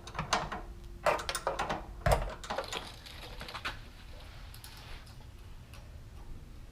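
A quick, irregular run of metallic clicks and knocks from hand tools and suspension parts being worked, dying away after about four seconds.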